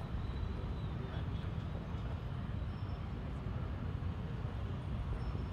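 Steady low rumble of open-air background noise, even throughout, with no distinct hoofbeats standing out.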